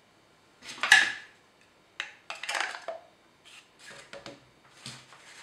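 A sheath knife being handled and pushed into its sheath on a tabletop: a loud scrape about a second in, then a click and another scrape, followed by smaller knocks and rustles.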